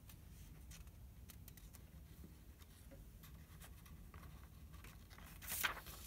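Faint room tone with a few small ticks, then a page of a hardcover picture book turned near the end: a short paper rustle.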